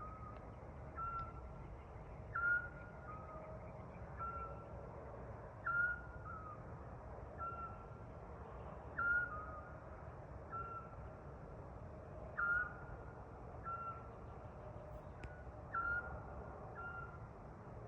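A bird calling in a repeated whistled phrase, heard over a steady low rumble. Each phrase is a loud note that drops sharply and then holds, followed by two softer level notes, and it repeats about every three and a third seconds.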